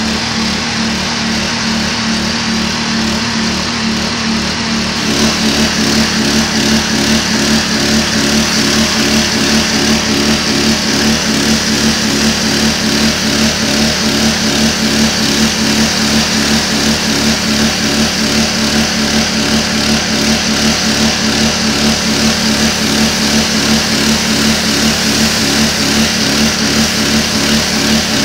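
Small gas-engine pressure washer running steadily. About five seconds in the spray wand is triggered, and the hiss of high-pressure water blasting a concrete wall joins the engine for the rest of the time.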